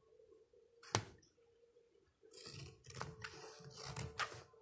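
A single sharp click about a second in, then rustling and handling noise with several clicks in the second half. A faint steady hum runs underneath.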